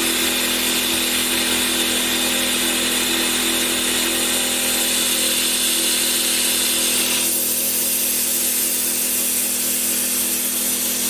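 Air-driven Mityvac MV6830 vacuum brake bleeder hissing steadily on shop air, with a steady hum under it, as it sucks hydraulic oil out of the tank into its reservoir. About seven seconds in, the higher part of the hiss drops away.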